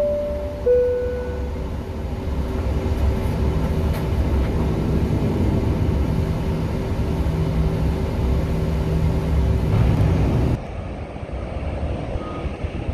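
Steady drone of jet aircraft engines across an airport ramp, with a low steady hum under it. A short falling tone sounds right at the start, and the drone cuts off sharply about ten and a half seconds in to quieter wind noise.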